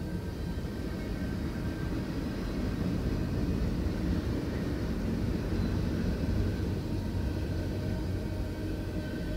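Freight train cars, tank cars and covered hoppers, rolling past at a grade crossing: a steady low rumble of the wheels with faint steady high-pitched tones above it.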